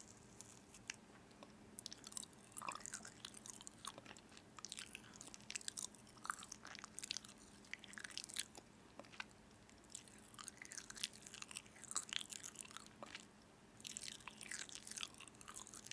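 Someone chewing crunchy food close to the microphone: faint, irregular crunches and crackles with a short pause about three-quarters of the way through.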